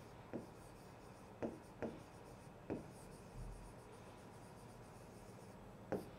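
Stylus tapping and scratching on an interactive display's screen while handwriting words: a handful of short, sharp taps at uneven intervals, with a longer pause in the second half.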